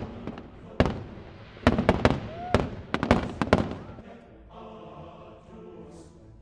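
Fireworks shells bursting in quick succession, a rapid run of sharp bangs. The bangs stop about four seconds in, and music takes over.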